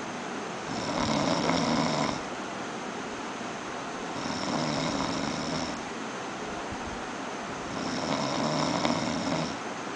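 A person snoring in their sleep: three long snores, each about a second and a half, coming about every three and a half seconds.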